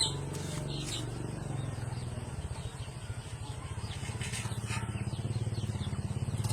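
A small engine running steadily with an even, rapid low pulse.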